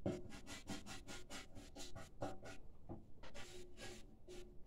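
A tool scraping and scrubbing inside a metal motorcycle fuel tank in quick back-and-forth strokes, several a second. From about three seconds in the strokes become longer and slower.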